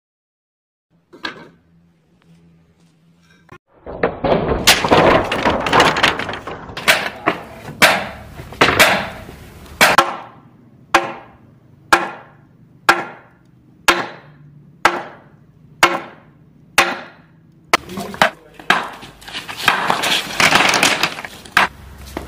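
Clay roof tiles crashing and clattering for several seconds, then about eight sharp whacks roughly one a second, each ringing briefly, with more clattering near the end.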